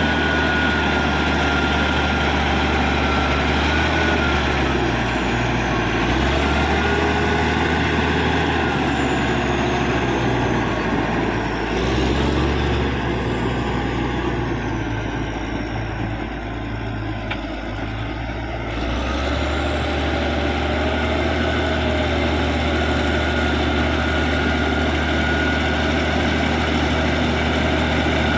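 Caterpillar D6G bulldozer's six-cylinder diesel engine running steadily, with a high whine over it. Between about twelve and nineteen seconds in, the sound dips and shifts lower, then returns to its steady run.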